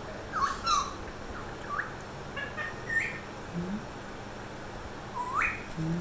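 Pet parrot whistling and chirping: a string of short rising whistles, with a longer rising whistle near the end.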